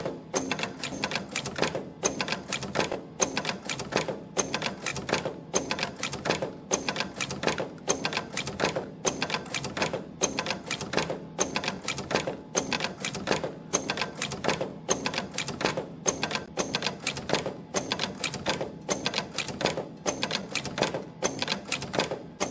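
CNC extension spring machine clattering rapidly as it coils 0.5 mm wire and bends German hooks on each spring. Its cycle repeats a little more than once a second, matching a rate of about 50 springs a minute.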